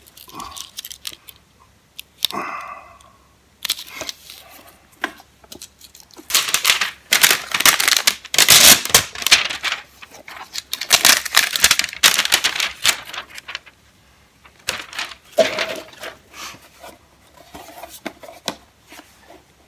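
Plastic shrink-wrap being torn and crinkled off a sealed reel-to-reel tape box, in loud crackling bursts through the middle, with softer rustling and handling of the box before and after.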